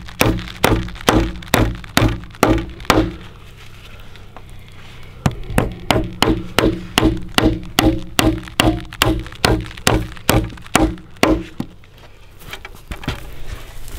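A hammer driving nails into a wooden frame, nailing an upright stud to the bottom board: steady blows, about two to three a second, each with a short ring. A run of blows is followed by a pause of about two seconds, then a longer run that stops about two seconds before the end.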